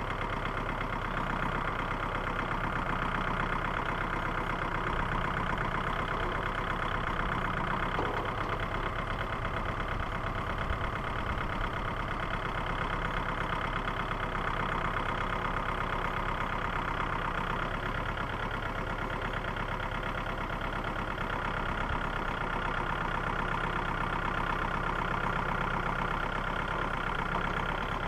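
Small tractor engine running steadily at low revs.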